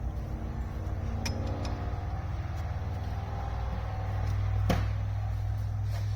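Hand tool working on a bolt at the transmission's shift mechanism: a few sharp metal clicks and, about two-thirds of the way in, one louder clank, over a steady low machine hum.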